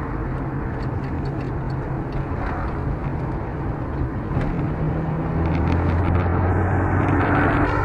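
Road and engine noise inside a moving car: a steady low engine drone over tyre and road noise, growing louder about halfway through.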